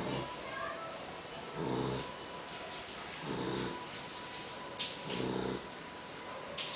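A poodle snoring loudly in her sleep, a regular snore about every second and a half to two seconds, four in all.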